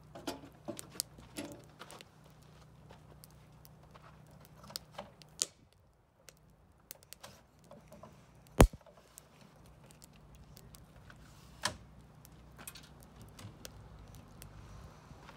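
Scattered clicks and knocks from a travel trailer's metal entry steps and door: footfalls on the steps at first, then a sharp clack about eight and a half seconds in, the loudest sound, and another knock a few seconds later.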